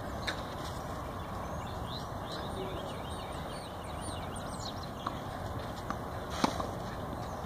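Tennis ball hit back and forth with racquets on a clay court: sharp pops of racquet on ball, one just after the start and the loudest about six and a half seconds in, with a few softer knocks between. Birds chirp faintly in the background during the first half.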